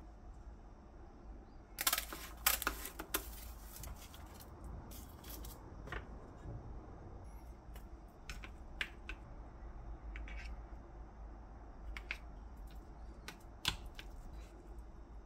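Scattered sharp clicks and taps of kitchen prep work, with a quick run of them about two seconds in and single clicks spread through the rest.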